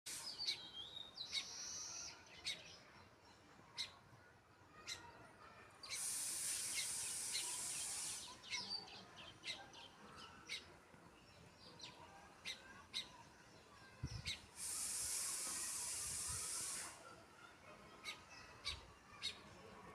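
Sparrows chirping: short, sharp chirps repeated about once or twice a second, a few of them sliding in pitch. Twice a steady hiss sets in for about two seconds and then cuts off.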